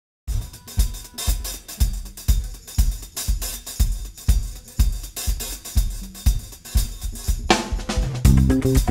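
Intro music: a drum kit playing a steady beat of kick, snare and hi-hat, about two beats a second, with a bass line joining near the end.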